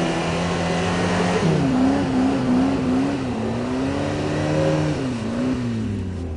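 Off-road 4x4's engine held at high revs, the pitch wavering up and down as the spinning wheels dig into the track, then the revs dropping near the end.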